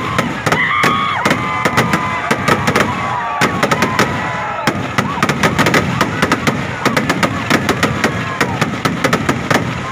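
Fireworks display: a rapid, irregular barrage of bangs, several a second, as shells are fired one after another in a rising column of bursts.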